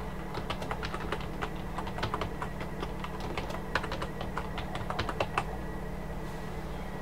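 Typing on a computer keyboard: a quick, uneven run of key clicks that stops over a second before the end, over a low steady hum.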